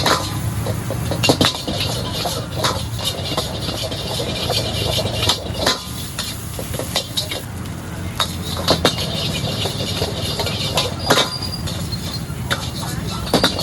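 Fried rice being stir-fried in a wok: a metal spatula clanks and scrapes against the wok at irregular intervals over a steady low roar.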